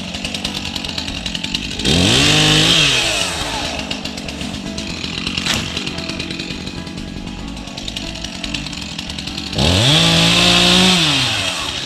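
A small engine running steadily, revved up twice: each time the pitch climbs, holds for a second or so with a hiss, and falls back.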